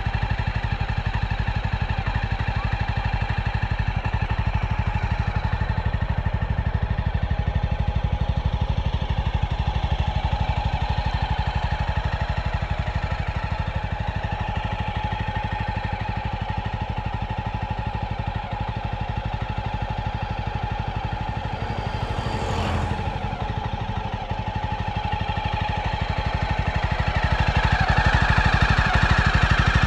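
Jawa 42 motorcycle's single-cylinder engine running steadily at idle through its stock exhaust with the dB killers still fitted. It gets a little louder over the last few seconds.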